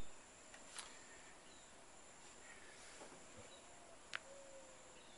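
Near silence: faint outdoor background with a thin steady high tone and a couple of faint clicks.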